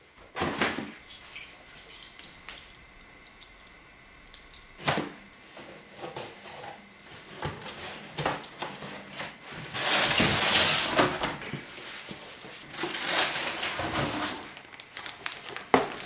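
A cardboard shipping box being handled and opened by hand: knocks, scraping and rustling of cardboard, a sharp knock about five seconds in, and a loud tearing noise about ten seconds in, with more rustling after. Picked up by a DSLR camera's built-in microphone, unprocessed.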